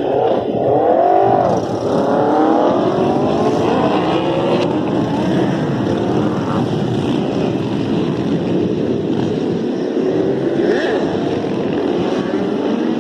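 Several superbike engines revving and accelerating, their pitch rising and falling sharply in the first couple of seconds, then running on together with overlapping rises in pitch.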